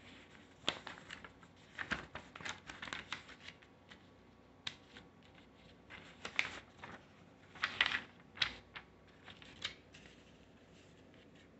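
A folded paper instruction leaflet being unfolded and handled, crinkling and rustling in short irregular bursts.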